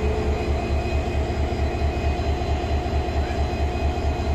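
Diesel locomotive's engine running close by with a steady, low, pulsing rumble as the locomotive gets under way with a single coach.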